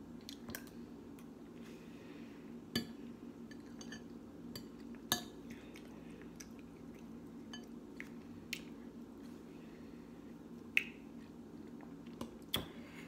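Metal spoon clinking and scraping in a glass bowl of oatmeal: a handful of faint sharp clinks spread a second or more apart, with soft chewing in between.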